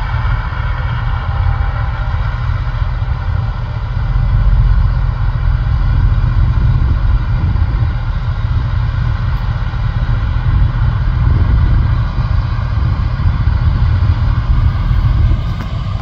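John Deere S680 combine harvesting corn, its engine and threshing machinery running steadily with a deep rumble and a steady whine, a tractor with a grain cart running close alongside.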